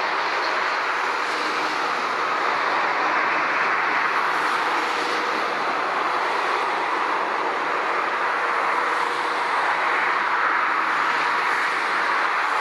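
Steady rushing roar of passing motorway traffic, swelling slightly every few seconds.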